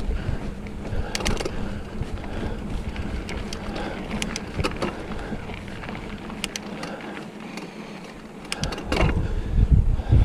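Specialized Fuse mountain bike rolling over a dirt singletrack: tyre rumble and wind buffeting the camera microphone, with scattered clicks and rattles from the bike over bumps. The rumble eases off briefly near the end, then comes back louder.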